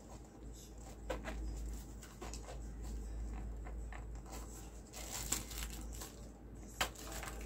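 Light handling noise from unwrapping a small round white plastic case: plastic crinkling and tearing as its wrapping is peeled off, with a few sharp clicks, the loudest near the end.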